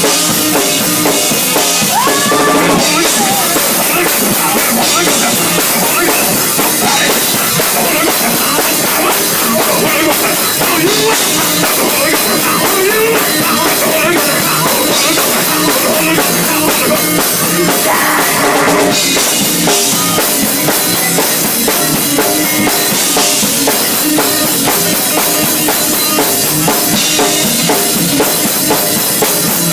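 Loud live gospel music for a praise dance: a drum kit driving a steady beat with bass drum and snare, with keyboard underneath, continuous throughout.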